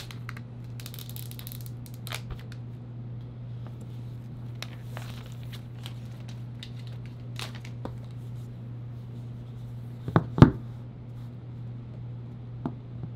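Clear plastic shrink wrap being peeled off a phone box, crinkling and tearing with light scratchy handling noises, followed a little after ten seconds by two sharp thumps as the box is knocked down on the table. A steady low hum runs underneath.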